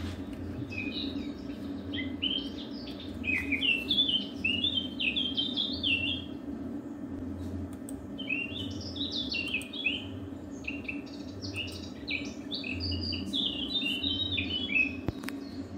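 A bird singing in two long bouts of quick, varied chirping notes, with a steady low hum underneath.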